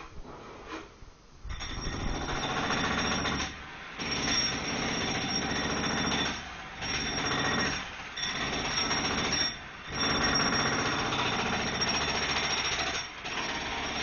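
Jackhammer hammering on the balcony just outside, in runs of one to three seconds broken by short pauses, starting about a second and a half in.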